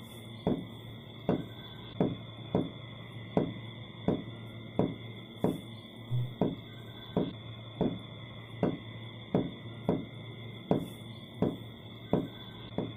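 Steady ticking, a sharp tick about every 0.7 seconds, each with a short fading ring, over a faint steady high tone and a low hum.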